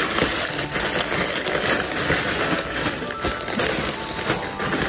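Plastic packaging crinkling and rustling as a packaged travel organizer set is handled, with light background music.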